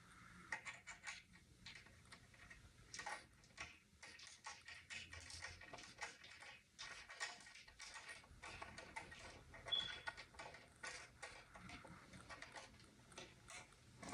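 Small clicks, taps and rustles of plastic parts and packaging being handled, with one brief high squeak about two-thirds of the way through.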